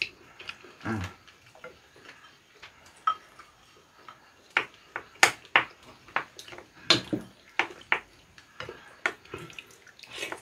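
Spoons clinking and scraping against ceramic soup bowls while two people eat dumpling soup with rice, with broth being slurped. The sound is an irregular run of sharp taps, thicker and louder in the second half.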